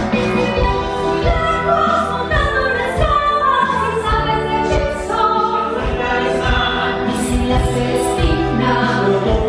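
Live musical theatre number: an ensemble of voices singing together as a choir over band accompaniment.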